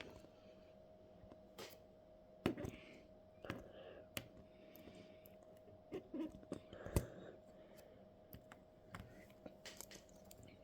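Irregular light clicks and taps of small hard parts being handled, a few of them louder, over a faint steady hum.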